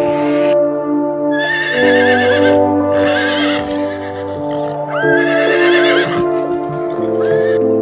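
Horse whinnying in three long quavering calls and a short one near the end, over steady background music.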